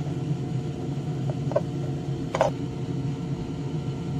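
A steady machine hum from a small electric fan or motor, with a few light clicks and taps about a third and halfway through.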